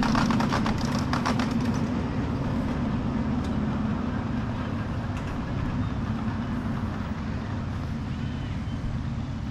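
A 7½-inch gauge ride-on miniature train passing and moving away. A fast run of sharp clicks lasts through the first second and a half, over a steady low running hum that slowly fades.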